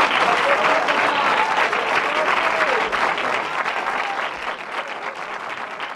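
Audience applauding, with a few voices calling out in the crowd; the applause slowly fades down.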